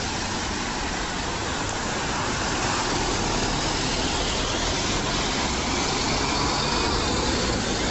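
Busy street traffic: double-decker buses and other vehicles driving past with engines running and tyre noise, getting a little louder from about two or three seconds in as a bus pulls by close.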